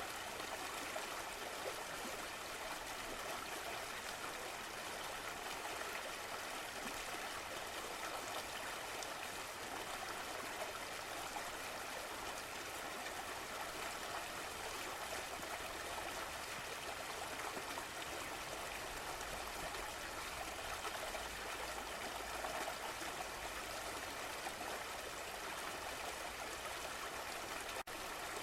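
A stream of water flowing and trickling steadily, with a momentary dropout near the end.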